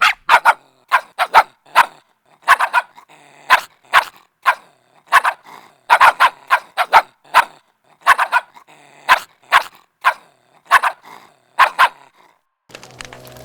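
Angry puppy barking in quick runs of short, sharp, high barks, often two or three close together. The barking stops near the end, and after a short gap music begins.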